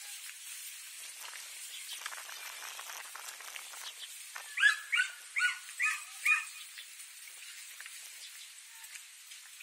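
A dog barking five times in quick succession, about two or three barks a second, about halfway through, over a faint steady outdoor hiss.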